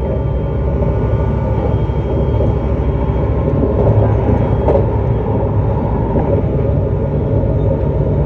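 JR East E259 series Narita Express electric train running at speed: a steady rumble of wheels on rail and running gear.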